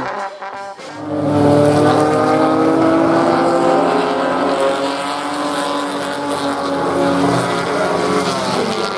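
A field of 1950s saloon racing cars running on the circuit. From about a second in, several engine notes overlap and slowly fall in pitch as the cars go by.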